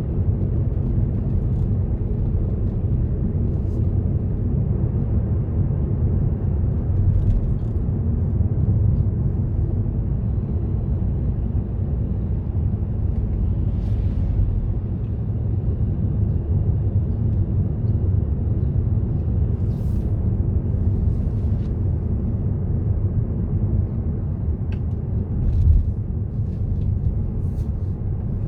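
Steady low rumble of a car driving along a road, engine and tyre noise, with a few faint clicks and ticks.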